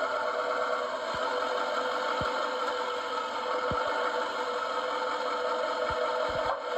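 A 2019 GMC Sierra 3500 HD's diesel engine idling steadily, with a handful of short, dull, low clunks at irregular intervals from the driver's side front suspension each time the truck moves. The owner suspects worn lower control arm bushings.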